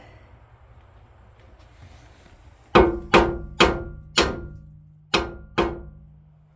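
Six sharp metal blows struck in quick succession on the snowblower's rusted-on auger, each leaving a brief ringing tone. The striking is done to break loose an auger seized onto its shaft.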